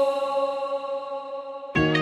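Background music: a held chord slowly fades, then a new chord comes in sharply near the end.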